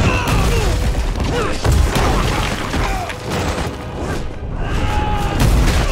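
Film fight-scene sound mix: a musical score under repeated deep booms and crashing rock from earthbending, with short falling cries and effects gliding through it.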